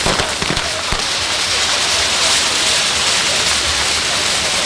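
Ground fireworks burning with a steady, dense hiss, and a few sharp pops in the first second.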